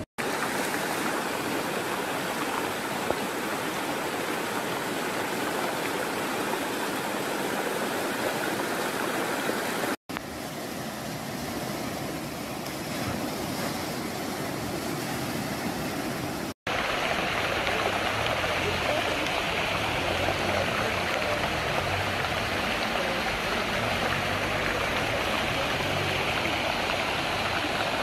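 Fast-flowing floodwater rushing steadily. It breaks off abruptly twice, about ten and sixteen seconds in, as the footage cuts, and the last stretch is louder and hissier.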